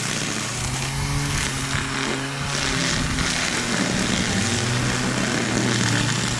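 String trimmer running as it cuts through tall grass and weeds, a steady motor whine over the hiss of the cutting line, growing a little louder about halfway through.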